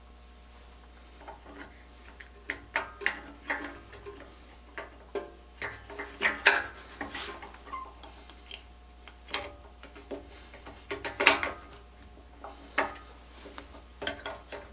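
Irregular clicks, taps and clinks of hand tools and small parts being handled at a workbench. They start about a second in, with a few sharper, louder knocks along the way.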